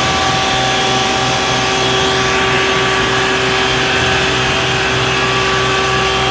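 Water cannon on an Isuzu tanker truck spraying a long jet of water: a steady, loud rushing hiss over the steady hum of the truck's engine.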